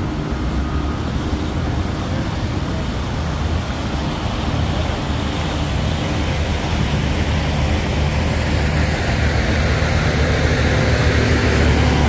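Diesel engine of a Volvo articulated dump truck running, a low rumble that grows steadily louder as the truck approaches.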